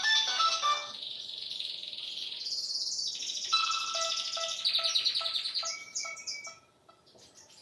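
A Nokia 3220 ringtone made of fast, high, bird-like chirping trills, following the last notes of a melodic ringtone. From about halfway, short lower beeps repeat beneath the trills, and the sound fades out near the end.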